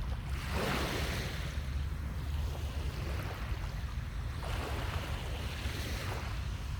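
Sea waves washing up a beach, one surge of surf about half a second in and another around four and a half seconds, over a steady low rumble of wind on the microphone.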